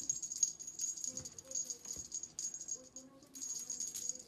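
Jingling rattle of a cat's wand toy being shaken and jerked about, almost continuous with a short break about three seconds in.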